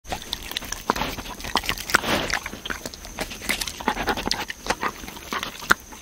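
Deer licking and chewing wet cat food and birdseed off the porch floor close to the microphone: irregular wet clicks and smacks, several a second.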